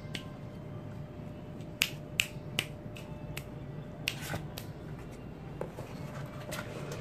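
Kittens scrambling in a cardboard box, their claws catching the cardboard in a few sharp clicks and scratches, three close together about two seconds in and three more about four seconds in, over a low steady hum.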